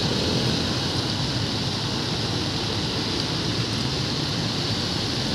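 Steady rushing noise of traffic on a flooded road, tyres pushing through standing water.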